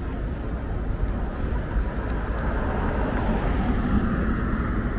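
City street traffic noise, with a motor vehicle passing that swells in loudness around the middle and then eases off.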